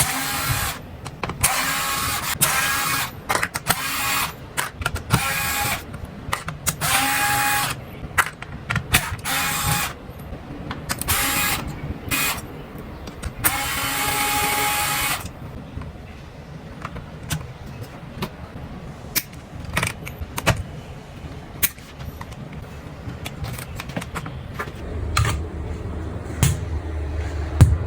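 Handheld electric screwdriver running in short bursts of one to two seconds each, about a dozen times in the first half, holding a steady pitch. After that come quieter clicks and knocks of handling.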